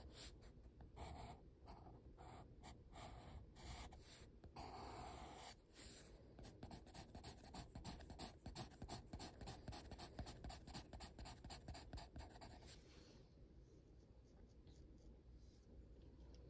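Coloured pencil scratching on sketchbook paper: a few separate strokes, then quick back-and-forth shading strokes that stop about 13 seconds in.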